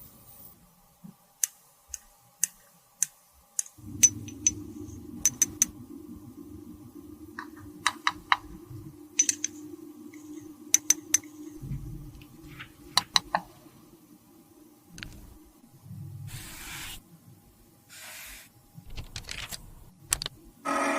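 Sharp clicks and taps of small plastic cosmetic cases and tools being handled, scattered irregularly throughout. A steady low hum runs underneath from about four seconds in to about twelve, and there are short hissing bursts near the end.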